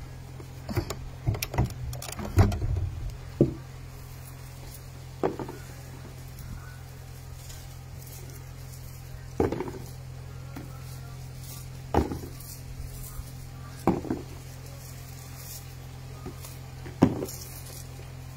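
Tomatoes being picked and dropped one at a time into a plastic basin, giving about ten short, irregular knocks and rustles over a steady low hum.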